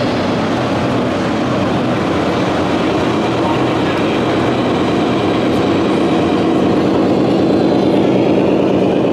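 Radio-controlled Scania tractor-trailer driving past with a steady engine sound, growing a little louder toward the end, over the chatter of a crowd.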